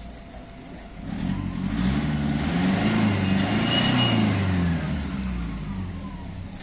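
Toyota Hiace engine revved once: the pitch climbs for about two seconds, holds, then falls back toward idle. The engine runs cleanly on the rev now that the hard-starting fault has been fixed.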